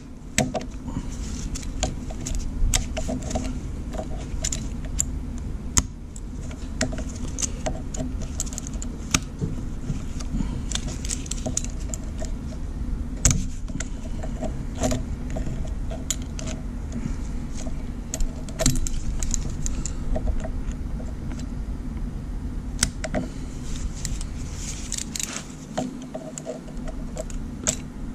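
Locking pliers clamped on a sheared bolt stub in an engine-mount boss of a Jeep 4.0 inline-six block, worked back and forth with irregular metallic clicks and scrapes as the jaws grip and slip: an attempt to back out a broken bolt. A steady low hum runs underneath.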